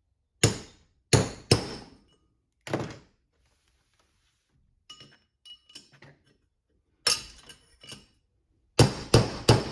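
Hammer blows on steel driving a stuck bearing part out of a Toyota 8-inch rear differential, each strike sharp with a short metallic ring. The blows come in groups, with a few light taps in the middle and three quick hard hits near the end.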